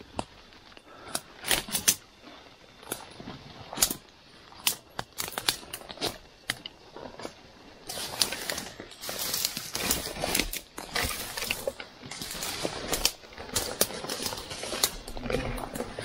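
Leaves and twigs rustling and snapping as hikers push through dense undergrowth: scattered sharp crackles at first, then denser, more continuous rustling from about halfway.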